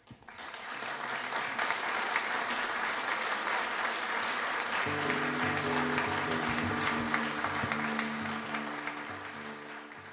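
Concert audience applauding, starting suddenly out of silence, as dense clapping. About five seconds in, music with low, held chords sounds under the applause, which tails off near the end.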